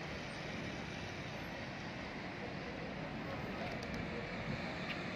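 Urban street traffic: cars and a bus driving past on the road around a roundabout, a steady hum of engines and tyres that grows slightly louder about four seconds in.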